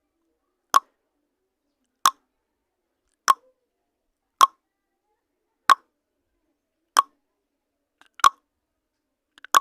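Countdown timer sound effect: a short, sharp blip repeating about every one and a quarter seconds, roughly eight times, with silence in between.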